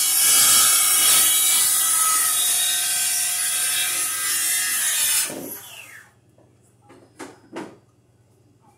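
Screwdriver driving a screw into a metal double receptacle box: a steady scraping that stops sharply about five seconds in, followed by two short clicks.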